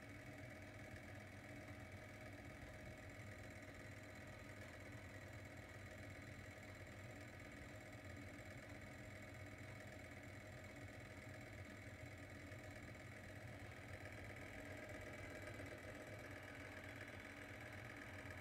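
Crestworth Galaxy fibre-optic lamp running, its motor-turned colour wheel making a faint steady hum with several steady tones.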